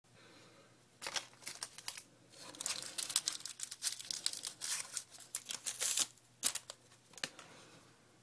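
Crinkling and rustling of wrapping being handled, in irregular bursts that start about a second in and stop about seven seconds in, with a short pause near the two-second mark.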